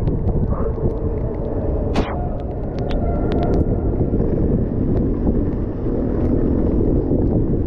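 Mountain bike riding at speed, heard through an action camera's microphone: a steady low rush of wind on the mic and tyres rolling over wet asphalt and then wet gravel. Scattered small clicks run through it, with one sharp click about two seconds in.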